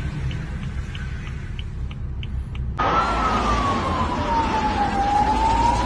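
A low, steady rumble with faint ticks about three times a second, then, after an abrupt change about three seconds in, a siren wailing: one slow tone that falls and then begins to rise again.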